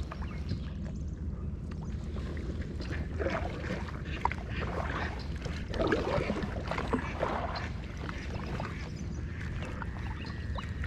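Kayak paddle strokes through duckweed-choked pond water: the blades splash and swish in irregular swells every second or two, over a steady low rumble.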